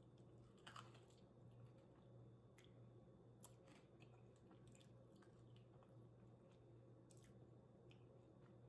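Faint close-up chewing: soft wet mouth clicks and smacks of someone eating, scattered irregularly, over a low steady hum.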